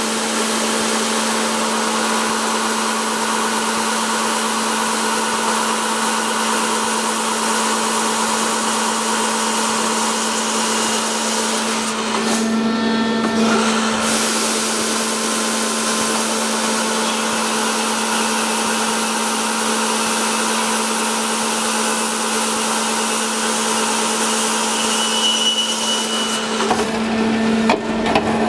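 Peddinghaus CNC beam drill line running: a steady, loud machine noise with a constant hum under a wide hiss. The hiss drops out briefly about twelve seconds in, and the sound turns unsteady near the end.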